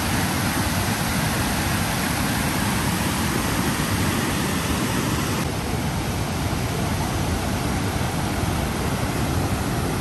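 Waterfall water rushing steadily over rock ledges and rapids, a continuous even noise. Its character shifts slightly about halfway through, where the shot changes.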